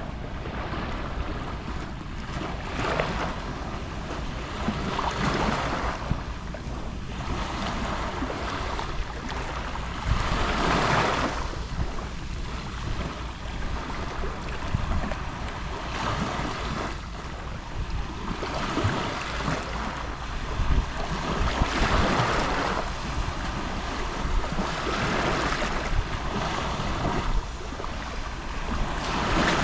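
Gentle Mediterranean sea waves lapping on the shore, small swells washing in and out every few seconds, with a low rumble of wind on the microphone.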